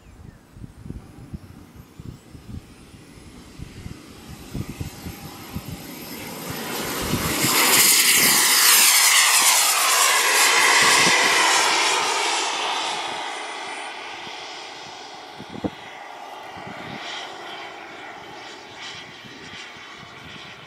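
Kingcat radio-controlled model jet taking off and passing: a high engine whine climbs in pitch over the first several seconds, the jet noise swells to its loudest about eight to twelve seconds in, then fades as the plane flies away.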